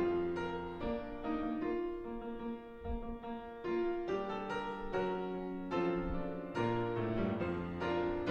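Piano playing a slow piece of sustained chords, a new chord struck every half second to a second.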